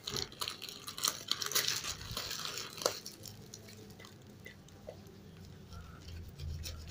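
Plastic packaging crinkling and crackling as a utility knife slits the taped black plastic wrapping of a parcel: irregular small crackles and ticks, busiest in the first few seconds, then sparser.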